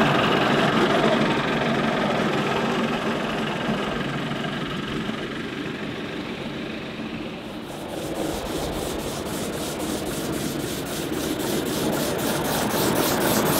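Miniature steam locomotives running on a ground-level track: the first one's running noise fades as it pulls away. About halfway through, a second locomotive approaches, its quick, regular exhaust beats growing louder.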